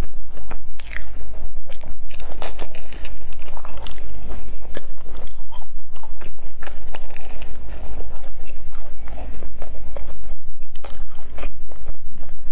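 Crunching and chewing of a crisp, crumb-coated bun bitten into close to the microphone, with many small crackles from the crust.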